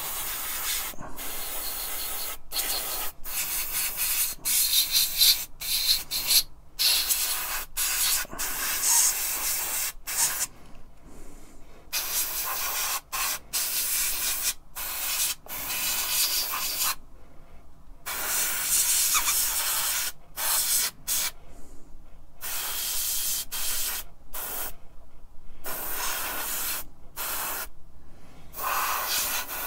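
Gravity-feed airbrush spraying paint: a high hiss of air and paint that stops and starts many times in short bursts, with a few longer breaks.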